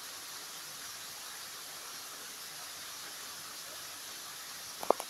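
Steady, even hiss of breezy lakeshore ambience, with one sharp click near the end.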